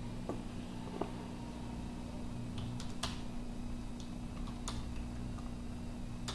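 Computer keyboard keys clicking: a handful of separate keystrokes as numbers are typed into a spreadsheet, over a steady low hum.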